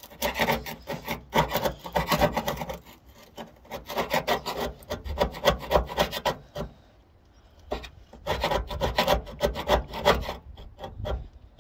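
Hand scraper with a wooden handle scraping and chiselling flaking rust and paint off a car's steel door panel in quick rasping strokes, in three spells with short pauses between them.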